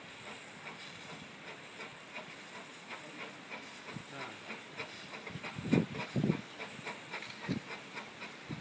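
Narrow-gauge steam locomotive No. 6 Douglas hissing steam, then several loud exhaust chuffs from about halfway in as it works a heavy mixed train.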